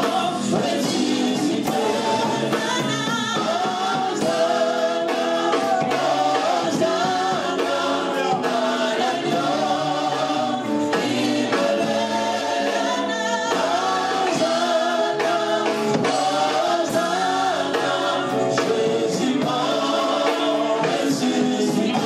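A women's gospel vocal group singing in harmony into microphones, backed by a live band with drums.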